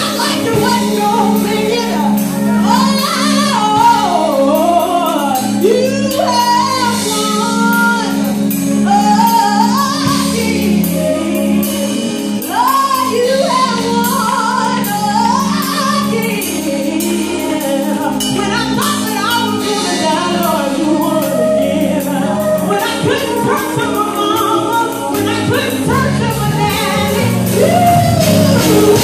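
Gospel music: a woman singing a sliding, ornamented melody over sustained accompaniment chords.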